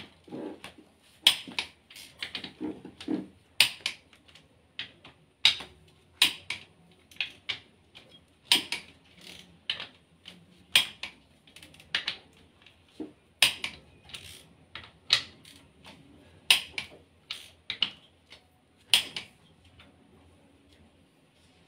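Sharp metallic clicks of a ratchet wrench with a long handle, irregular single clicks and short runs, as the bolts on a bare engine block's crankshaft bearing caps are tightened.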